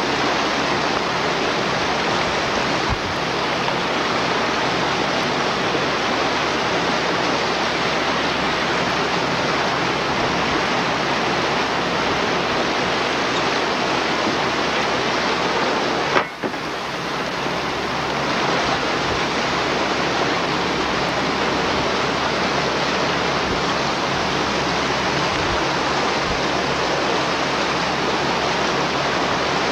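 Steady rushing and churning of water along the side of a moving fishing boat, where a bluefin tuna is towed through the foam alongside the hull. A brief dropout with a click comes about sixteen seconds in.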